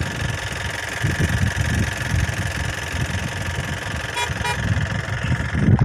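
A vehicle's engine and road noise rumbling steadily, with two short vehicle-horn toots in quick succession about four seconds in.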